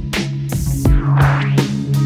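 Instrumental music with a steady beat over a low sustained bass line; a hissing swell rises about a second in.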